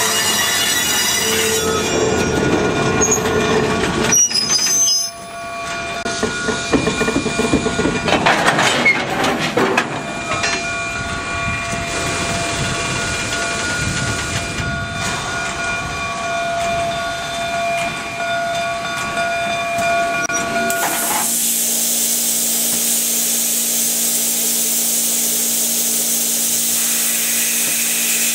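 Canadian Pacific 2317, a 1923 Montreal Locomotive Works steam locomotive, working: steam hiss and mechanical noise with several steady whining tones. About 21 seconds in, the sound changes to a loud, even high hiss over a low steady hum.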